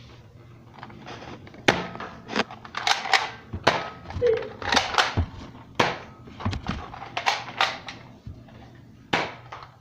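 Nerf blasters firing and foam darts hitting, heard as an irregular series of sharp clicks and thuds that starts about two seconds in.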